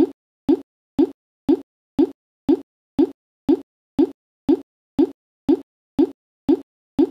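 A short pitched pop repeating at an exact, even pace of about two per second, each one identical and cut off sharply.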